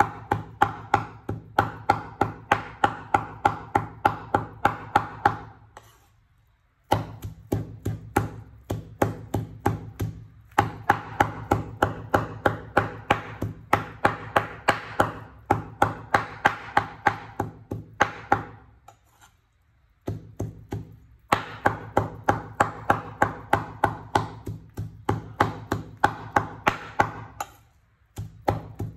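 A cleaver chopping raw pork into mince on a wooden cutting board: fast, even knocks, about three to four a second, in several runs broken by short pauses.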